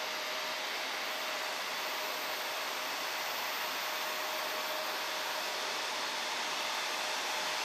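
Airport jet noise in steady rain: an even, unbroken rushing hiss with a faint steady tone underneath.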